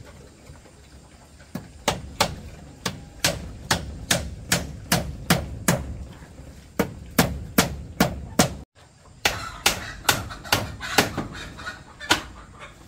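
A run of sharp tool blows on wood, about two or three a second, with a brief break about two-thirds of the way through. Chickens cluck in the background.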